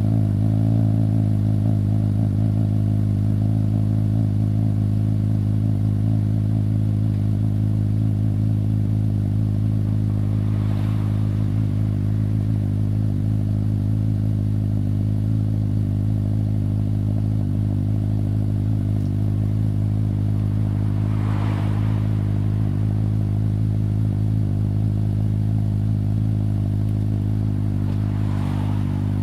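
Suzuki GSX-S750's inline-four engine idling steadily through an aftermarket LeoVince exhaust, the pitch holding even with no revs.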